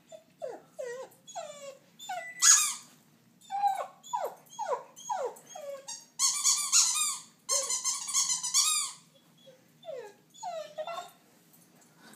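Dog whining: a run of short, high whimpers that fall in pitch, with two longer, louder whines about six and eight seconds in.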